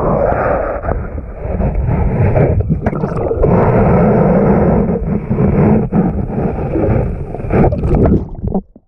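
Muffled rushing and churning of surf water picked up by a camera held underwater in the shallows, with a few short knocks. It cuts off suddenly near the end.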